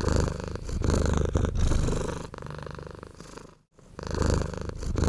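Domestic cat purring close up, swelling and fading with each breath. It cuts out briefly about three and a half seconds in, then resumes.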